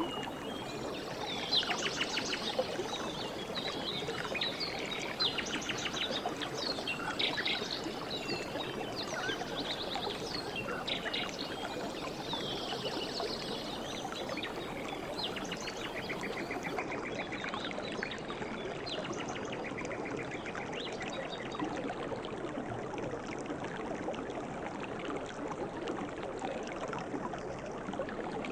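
A river or stream flowing steadily, with birds calling and trilling over it, the calls busiest in the first half and thinning out later on.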